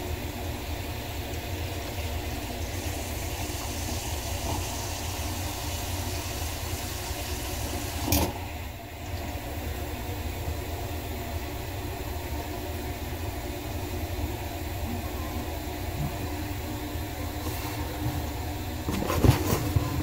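A steady motor-like hum, with one sharp click about eight seconds in and a few knocks near the end.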